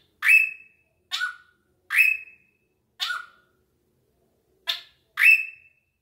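Drongo (srigunting) calling: six short, loud, harsh notes about a second apart, each a rasp ending in a short whistled tail. Some notes are pitched higher and some lower, with a brief gap before the last two.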